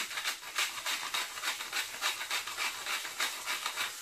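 Hand-twisted salt mill grinding salt: a steady run of gritty crunches, about four or five a second, that stops near the end.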